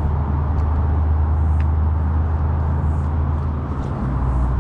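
Steady low drone of peak-hour road traffic.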